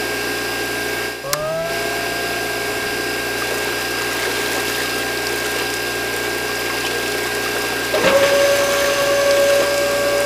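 Small DC electric motors of a homemade toy borewell drilling rig and mini water pump running with a steady whir, and water pouring from the pump hose. About a second in, a motor spins up with a short rising whine. Near the end, a louder steady whine joins.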